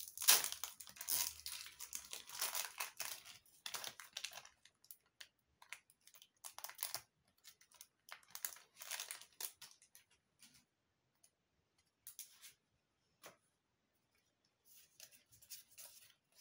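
Foil wrapper of a Pokémon booster pack being torn open and crinkled, dense for about four seconds, then short scattered rustles as the cards are handled.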